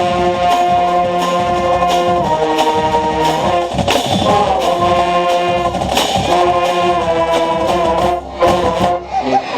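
Marching band brass playing held chords over drum strokes, heard from right among the horns at a mellophone player's position.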